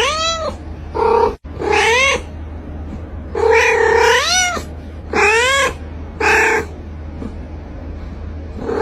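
A domestic cat meowing over and over: about six drawn-out calls, each rising and then falling in pitch, with one longer call in the middle.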